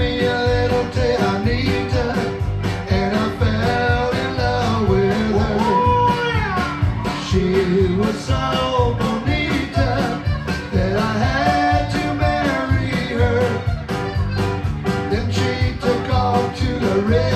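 Live Tex-Mex band music: button accordion, electric guitars, bass and drums playing a steady beat, with a man's voice singing.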